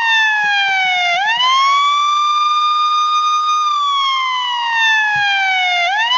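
Police car siren wailing: a high tone slides slowly down, sweeps quickly back up and holds, twice over.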